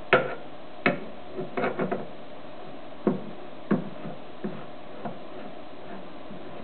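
Light knocks and clicks of hand handling on a homemade wooden lathe chuck, loudest at the start, with a quick run of clicks about a second and a half in, then a few fainter ones further apart.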